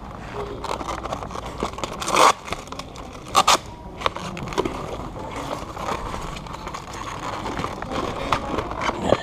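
A cardboard product box and its paper and plastic packing being opened and rummaged through by hand: continuous rustling and scraping, with two louder crinkles about two seconds in and about three and a half seconds in.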